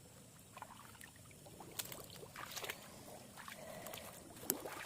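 Faint sloshing of shallow pond water and rustling of grass, with a few short crackles, as hands part the weeds at the water's edge searching for an eel burrow.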